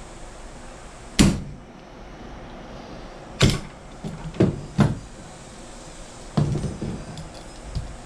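Six sharp knocks and clunks, spaced irregularly, from parts or tools being handled. The loudest comes about a second in, and two follow close together about halfway through.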